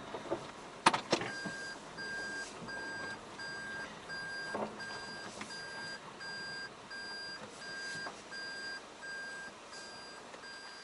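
An electronic beeper sounding a steady series of short, same-pitched beeps, about two a second, starting just after a sharp click.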